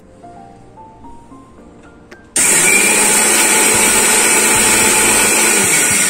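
Electric mixer grinder switched on about two seconds in, its motor running steadily at full speed as it grinds dry roasted whole spices coarsely. It is switched off near the end and winds down. Soft background music plays before it starts.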